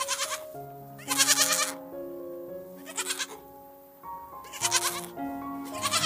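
Goats bleating several times, short quavering bleats with the longest about a second in, over background music of held notes.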